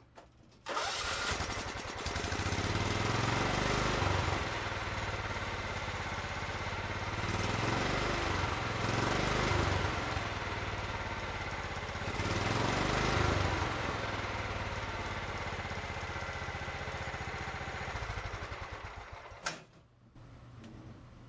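Kohler riding-mower engine catching at once under a second in and running steadily, its level swelling and easing a few times, on fuel from a newly fitted electric fuel pump and pressure regulator. It is shut off near the end with a brief sharp noise.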